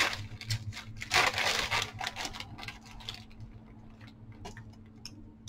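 Clear plastic bag crinkling and rustling as hands rummage through it, with light clicks of metal paper clips inside. The rustling dies down about three seconds in, leaving a few faint clicks.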